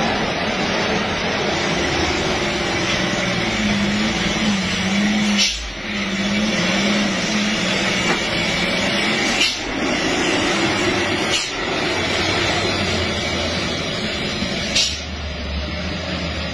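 A heavy truck's diesel engine running, its low drone wavering up and down in pitch, under a loud steady hiss of tyres on a wet road. The sound breaks off abruptly and resumes a few times at clip cuts.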